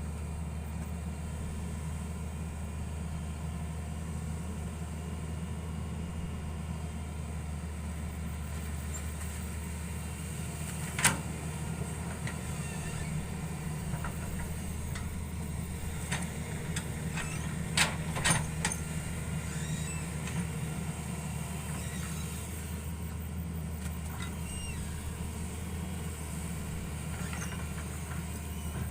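Hitachi 110 hydraulic excavator's diesel engine running steadily. A sharp knock sounds partway through, and two more come close together later.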